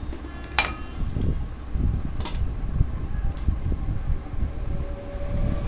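Low, uneven mechanical rumble, typical of a running vehicle, with three sharp clicks.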